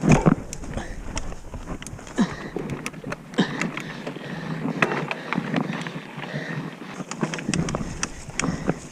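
Mountain bike being ridden over a rough dirt trail: a jumble of clicks, knocks and rattles from the bike over the ground, with a heavy knock right at the start.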